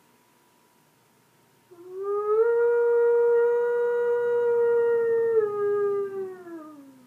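A person imitating a wolf howl with their voice: one long howl starting about two seconds in, sliding up in pitch, held steady for a few seconds, then falling away near the end.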